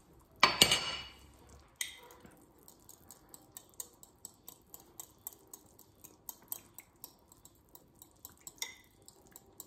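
Metal fork beating egg yolk and lemon juice in a small ceramic bowl, tapping the bowl's sides in a steady run of light clinks, about three a second. A louder clatter comes about half a second in.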